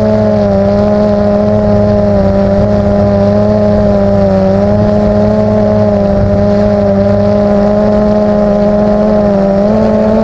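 Multirotor drone's motors and propellers humming steadily as it hovers, the pitch dipping slightly now and then and rising again near the end.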